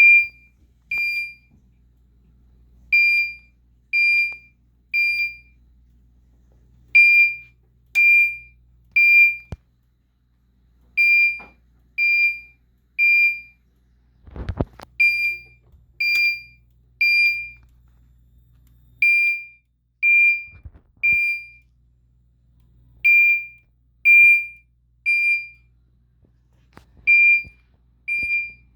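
Mircom fire alarm chime sounding the code 3 (temporal-three) evacuation pattern: three ringing strikes a second apart, a pause, then the group repeats. A brief low thump about halfway through.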